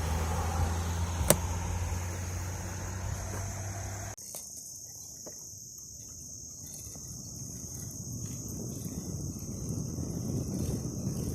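Insects trilling in a steady high-pitched chorus over a low rumble of wind and riding noise. The rumble drops away suddenly about four seconds in, leaving the insects clearer, and slowly builds again.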